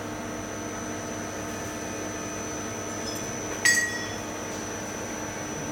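Steady hum of running CNC machine equipment, with a thin high whine over it. About two-thirds of the way through there is one sharp clack with a short metallic ring.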